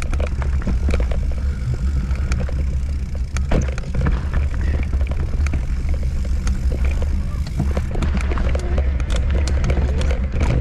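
Mountain bike rattling over a rough trail, with many irregular clicks and knocks from the bike and a steady low rumble of wind on the microphone.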